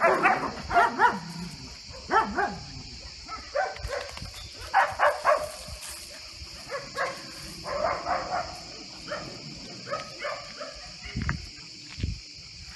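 Young dogs vocalising during rough play: short yips and barks in clusters every second or two.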